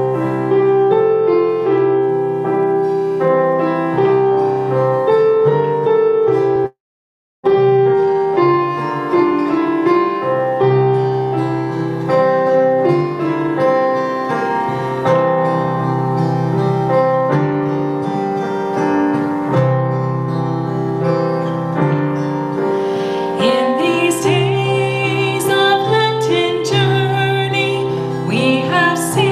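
Piano playing the introduction to an opening hymn; the sound cuts out completely for under a second early on. About three-quarters of the way through, voices start singing the hymn over the piano.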